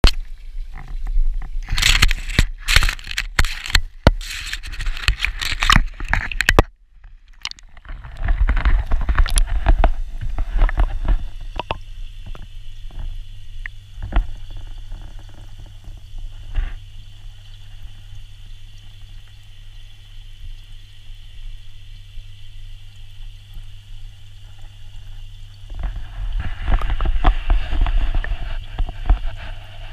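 Handling noise on a GoPro Hero 4 in its waterproof housing: knocks and scrapes of fingers on the case for the first several seconds. Then the camera is underwater in a pond, giving a muffled, steady low hum with scattered faint clicks, which swells again near the end.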